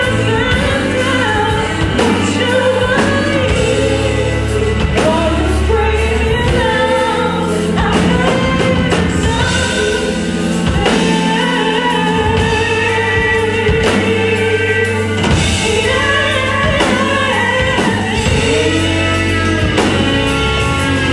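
A woman singing a pop song over a band, with a steady bass line and a regular drum beat.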